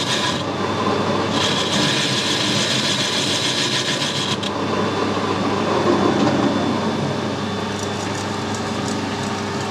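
Metal lathe taking a light facing cut across a casting held in a four-jaw chuck: the tool cuts with a rasping hiss, with a short break just after the start, and the cut stops about four seconds in. The lathe's motor and gearing keep running steadily after that.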